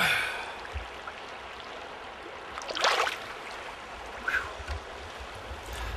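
Shallow river running over rocks, with a brief splash near the start as a smallmouth bass is let go by hand into the current, and another short splash about three seconds in.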